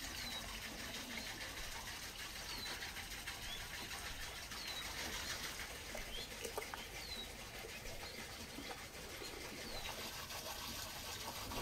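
Faint outdoor ambience with a small bird giving short chirps, one every second or two, over a low background hush.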